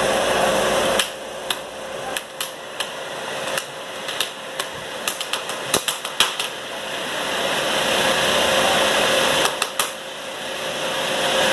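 Scallop cutting machine's cutting head clacking as fabric tape is fed through it by hand: sharp clacks at uneven intervals, sometimes several in quick succession, over a steady whirring noise that dips about a second in and builds again later.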